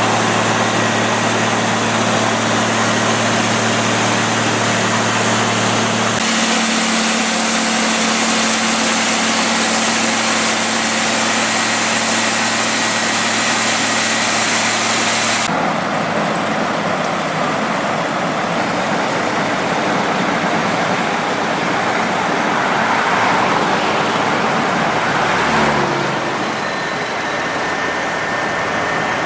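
Pavement cold-milling machine at work: heavy diesel engines running steadily under a harsh, constant grinding noise as the drum mills off the asphalt. The sound shifts abruptly twice.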